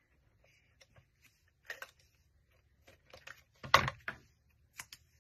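Handling of cardstock pieces and a plastic tape-runner adhesive dispenser on a craft mat: a few scattered light clicks and taps, the loudest a single sharp tap about three and a half seconds in.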